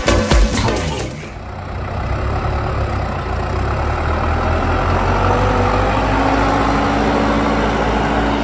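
Dance music cuts off about a second in. A tractor's diesel engine follows, running steadily and pulling a trailer, its pitch creeping up a little about two-thirds of the way through.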